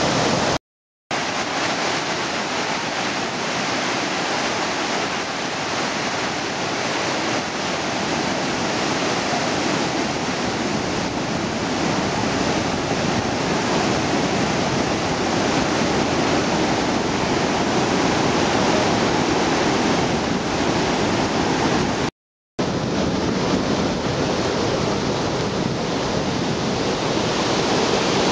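Floodwater pouring through a reservoir's spillway gates and churning in the channel below: a loud, steady rush of white water after heavy rain. The sound cuts out twice for about half a second, once near the start and once past twenty seconds in.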